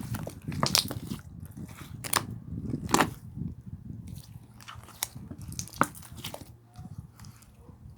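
Slime being squeezed and kneaded by hand, making irregular wet pops and crackles. The loudest pops come about one and three seconds in, and the sound grows sparser toward the end.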